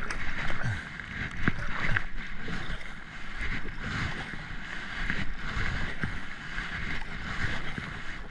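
River water rushing through a riffle around a kayak, with paddle strokes splashing and a few short sharp knocks scattered through.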